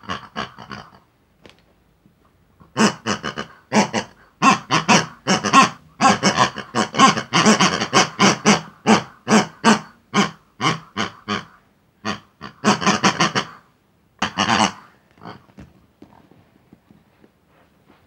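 Pink rubber squeeze-toy pigs giving pig-like squeals and oinks in quick short bursts, several a second, in long runs with brief pauses, fading out near the end.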